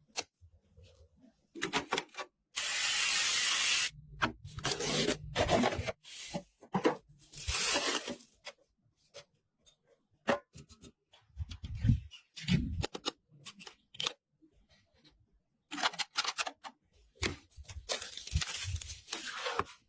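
Hand-handling noises from computer parts being installed: a loud tearing or peeling noise about three seconds in, followed by rustling, scraping and many small clicks and knocks.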